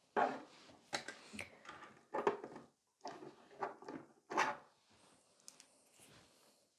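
Irregular clicks and knocks of small hard objects being handled and set down on a table, about eight in the first four and a half seconds, then only a few faint taps.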